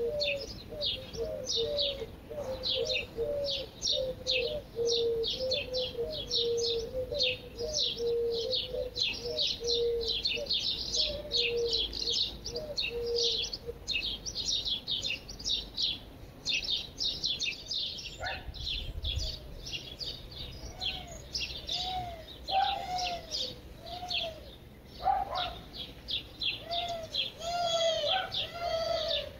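Songbirds chirping in quick, rapid falling notes. Underneath, a lower short call repeats about twice a second through the first half. In the second half, slower, lower arching calls take over.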